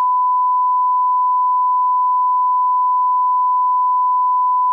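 A 1 kHz line-up test tone: one pure, unbroken beep held at a constant level, the audio reference tone that accompanies colour bars for setting playback levels.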